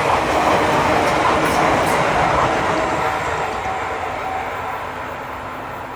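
A train running past on the line and moving away, its sound fading steadily.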